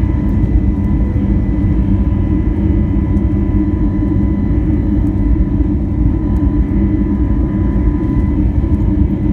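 Cabin noise inside an Airbus A321neo climbing just after takeoff: a loud, steady low rumble from its Pratt & Whitney PW1100G geared turbofan engines at climb power, with a faint steady whine over it.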